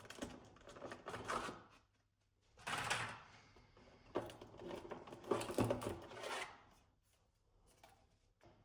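Collectible figure packaging being handled and opened by hand: three bursts of rustling and clacking, then a couple of faint clicks near the end.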